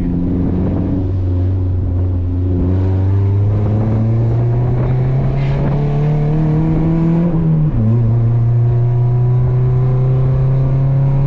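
Toyota Corolla's four-cylinder engine accelerating, its pitch climbing steadily, then dropping sharply about three-quarters of the way through at an upshift of the manual gearbox and climbing again.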